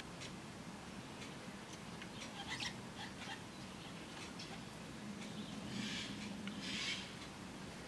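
Eurasian jay giving two harsh, rasping screeches over the second half, the first about a second long, preceded by scattered light ticks and taps.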